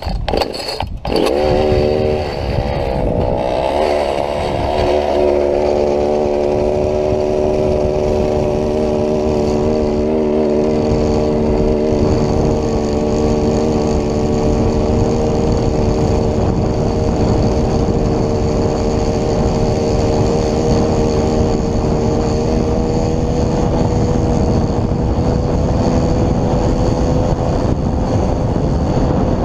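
Homelite two-stroke chainsaw engine powering a motorized bicycle, running at high revs after a few knocks at the start. Its pitch climbs over the first few seconds, then holds steady.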